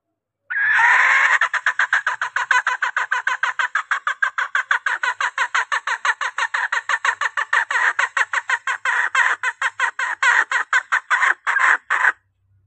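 Female junglefowl's rapid clucking call, a steady fast series of about six or seven clucks a second kept up for over ten seconds, starting about half a second in and stopping near the end: the hen's call used to lure in males.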